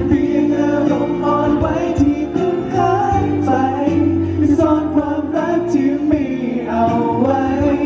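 Pop song performed live: steady backing music with melodic singing over it.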